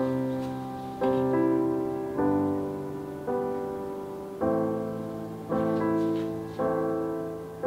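Background music: soft piano chords struck about once a second, each left to ring and fade.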